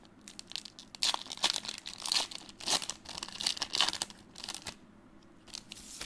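Foil wrapper of a Pokémon card booster pack being torn open and pulled back off the cards. A string of sharp crackling rustles starts about a second in, lasts nearly four seconds, then dies down.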